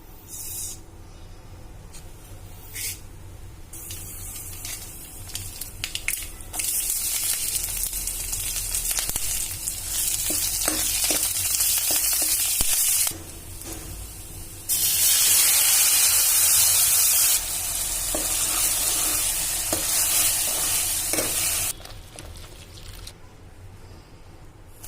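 Food sizzling in hot oil in a pan, in spells that start and stop abruptly, loudest about fifteen seconds in and cutting off a few seconds before the end.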